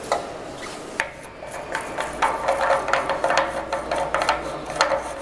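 Plastic cover being unscrewed and the seal pulled off a cryogenic tank's pump-out nozzle: many quick clicks and scrapes of plastic on threads, thicker from about a second in.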